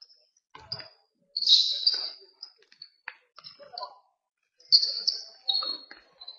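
Basketball shoes squeaking on the sports-hall floor: a string of short, high squeaks, loudest about a second and a half in and again near five seconds, over scattered dull thuds.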